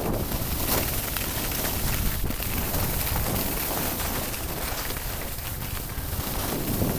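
Wind buffeting the microphone during a descent of a groomed ski slope, a steady low rumble over the continuous hiss of sliding on snow.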